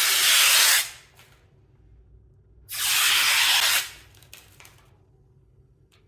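Protective plastic film being peeled off an acrylic base plate: two long hissing rips, one fading out about a second in and another about a second long starting near three seconds in.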